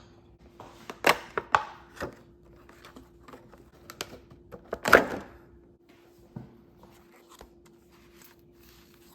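Hands handling and opening the packaging of a collect book: scattered clicks and taps, with a louder rustle or tear about five seconds in, over a faint steady hum.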